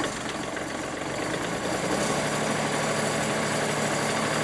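Kubota engine of a band sawmill just after starting, picking up speed over the first couple of seconds and then running steadily at about 1500 rpm.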